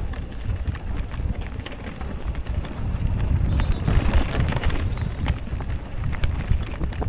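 Mountain bike ridden fast down a rough trail: wind rumbling on the camera's microphone, with a string of knocks and clatters from the tyres and bike over the bumpy ground, and a short burst of hiss about four seconds in.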